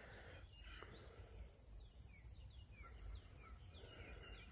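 Near silence: faint pond-side ambience of a steady high insect drone, with a few faint short chirps that fall in pitch through the second half.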